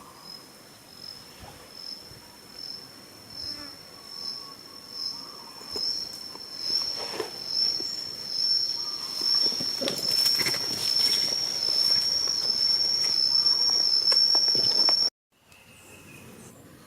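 Cicada buzzing in pulses a bit more than once a second. The pulses grow louder and merge into one steady high-pitched drone, which cuts off suddenly near the end.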